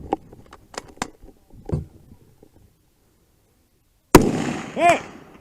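A few small equipment clicks, then a single loud gunshot about four seconds in, followed under a second later by a ringing metallic tone, the ring of a hit steel target, and a second shot right at the end.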